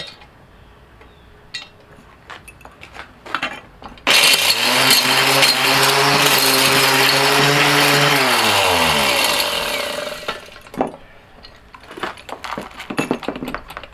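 Mighty Mill gold ore crusher shredding a batch of electronic connectors: a few light clicks as the pieces are handled, then about four seconds in the mill's electric motor starts suddenly and runs at a steady pitch while it grinds, and is switched off after about four seconds, its pitch falling as it winds down. A few small clinks of pieces follow.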